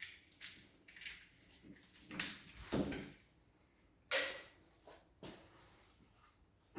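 Metal tools and engine parts being handled during a teardown: scattered knocks and scrapes, and a sharp metallic clink about four seconds in that rings briefly.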